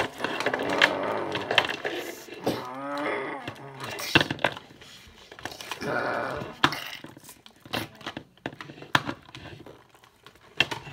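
Rough roaring and growling, including a drawn-out moaning wail about three seconds in, as toy dinosaurs fight, with plastic dinosaur figures repeatedly knocking and clacking on a hard floor.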